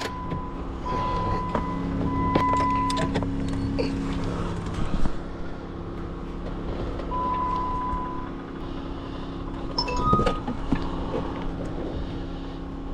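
A portable generator runs with a steady hum. Over it come several short electronic beeps at one pitch and a few light clicks and handling taps.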